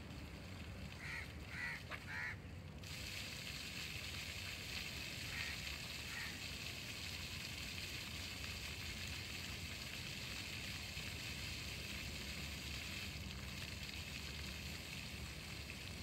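Small ground-level fountain jets spraying up from the paving and splattering onto wet tiles, a steady hiss that grows fuller about three seconds in. A few short high chirps sound early on.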